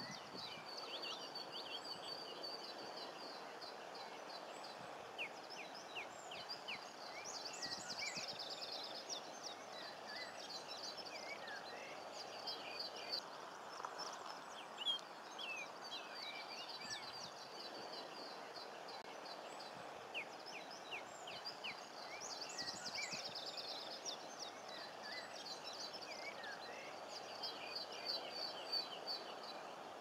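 Many small birds chirping and trilling in quick, scattered bursts throughout, over a steady outdoor background noise.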